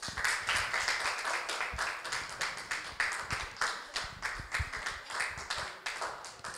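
A small audience applauding: many people clapping their hands at once in a dense, uneven patter.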